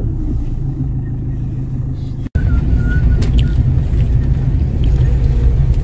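Deep, steady rumble of strong wind buffeting the microphone. It breaks off at a sudden cut about two seconds in, then resumes as the rumble of a car driving through rain in traffic, with a few faint ticks.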